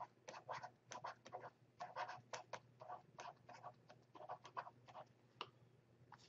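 Stylus writing on a pen tablet: a run of faint, irregular taps and scratches as words are handwritten, several strokes a second.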